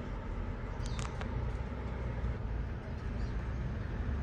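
A steady low rumble in the background, with a few short, high budgie chirps clustered about a second in.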